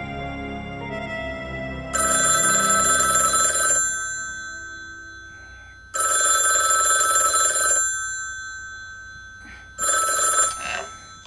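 Telephone bell ringing: two long rings about four seconds apart, then a third cut short after about half a second as the handset is picked up. Soft music fades out before the first ring.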